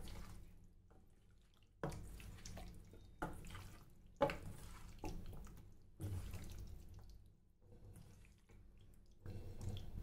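A hand squeezing and turning marinated chicken lollipop pieces in a stainless-steel bowl: faint, wet squishing and squelching of the thick masala marinade. It comes in irregular bursts about once a second.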